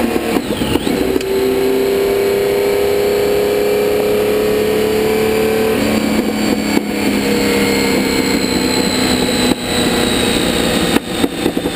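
Porsche 917K's air-cooled flat-12 racing engine heard onboard, pulling with its pitch slowly rising for several seconds. About halfway through the note changes and then sinks slowly as the car eases off, with a few brief breaks in the sound near the end.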